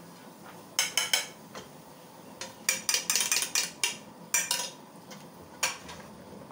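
Sharp clinks and knocks of spoons against a stainless steel cooking pot and a ceramic bowl. They come in bursts: a few about a second in, a quick cluster in the middle, then single knocks, as a little water is tipped into the cooking masala and stirred in.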